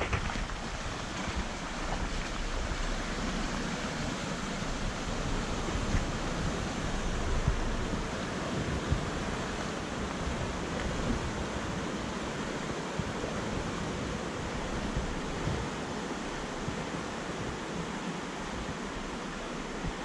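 Steady rush of a fast-flowing creek, with wind buffeting the microphone.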